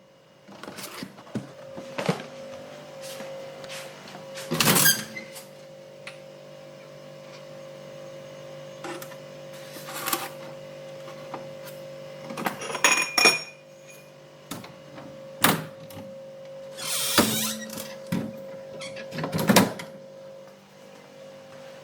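Kitchen handling sounds: a cupboard door opened and shut and a drinking glass taken out and set down, a series of separate knocks and clatters with one brief glassy ring near the middle, over a steady low hum.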